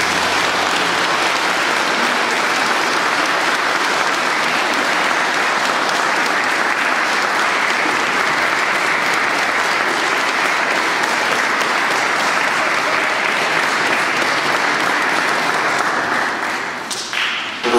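Audience applauding steadily after a choir song, thinning out near the end.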